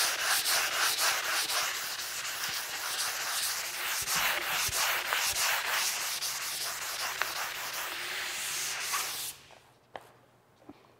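220-grit sandpaper on a hand block rubbed back and forth over a primed wooden centerboard, a scratchy hiss in quick strokes, lightly scuffing the primer to give it tooth for paint. The sanding stops about nine seconds in, followed by a couple of faint clicks.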